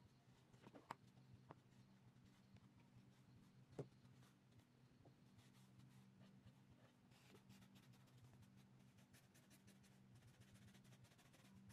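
Near silence: faint scratching of an Ohuhu alcohol marker's tip on sketchbook paper, with light clicks about a second in and again near four seconds, over a low steady hum.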